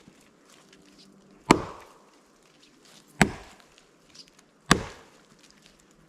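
Heavy felling axe with a head of over 2 kg chopping into a tree trunk: three solid strikes about a second and a half apart.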